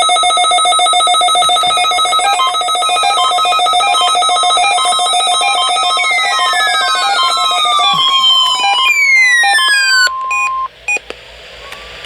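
Several NOAA weather radio receivers sounding their alert alarms at once: a loud layered mix of electronic beeps in different rhythms. Falling tones join in partway through, and the alarms cut off suddenly about ten seconds in, with one tone holding briefly after.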